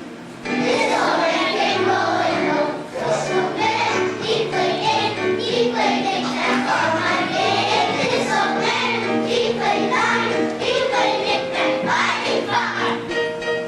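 Children's choir singing with instrumental accompaniment; the voices come in loudly about half a second in.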